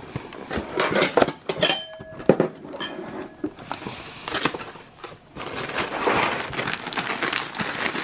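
Spoons and ceramic bowls clinking and knocking on a table, a few strikes with a short ring. From about five seconds in, a steady crinkling of the plastic cereal bag as it is opened.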